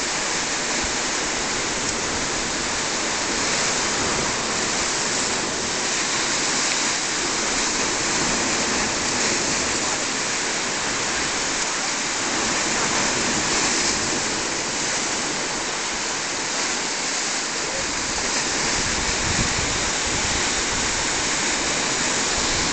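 Rough sea surging against the shore: a steady, unbroken rushing hiss of surf.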